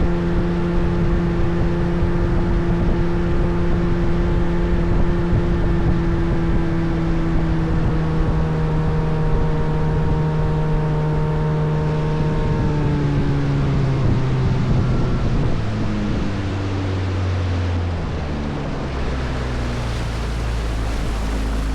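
Motorboat engine running steadily under way, then throttled back in the second half, its pitch stepping down over several seconds to a lower rumble.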